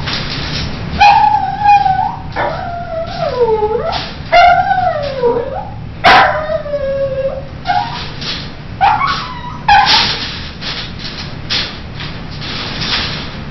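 Poodle howling and whimpering: a run of wavering calls, each sliding down in pitch, one after another for about nine seconds. Near the end it gives way to a few short noisy sounds.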